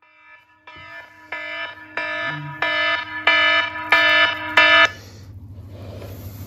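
A mobile device's wake-up alarm ringing: a pitched beep pattern repeating about three times every two seconds and growing louder, switched off about five seconds in, leaving a faint low hum.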